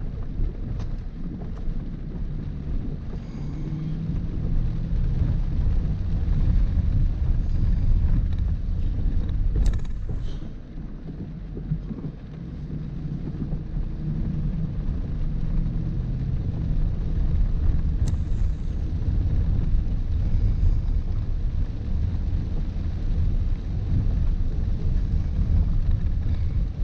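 Range Rover Sport driving slowly over a rough, wet gravel track, heard inside the cabin: a steady low rumble of tyres, suspension and engine. Two brief sharp clicks come about ten seconds in and again near eighteen seconds.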